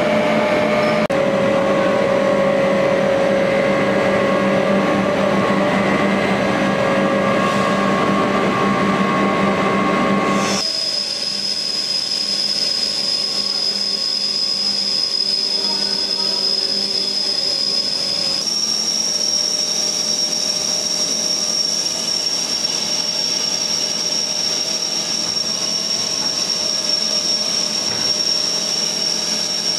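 Polythene film production machinery running steadily. About a third of the way in the sound changes abruptly to a steady high-pitched whine, which steps up slightly in pitch later on.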